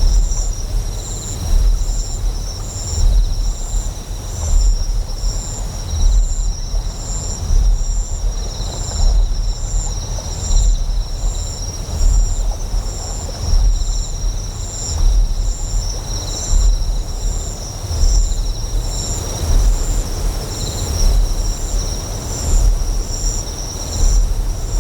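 Ambient soundscape of a deep generator hum that swells about every second and a half, under a steady run of short, high insect chirps and a hiss of flowing water.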